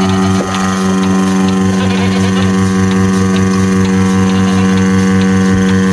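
Portable electric goat milking machine running, its motor-driven vacuum pump giving a steady hum with a fast, even pulsing underneath.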